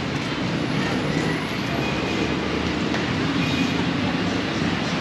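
Steady vehicle noise: a continuous low drone with no separate events.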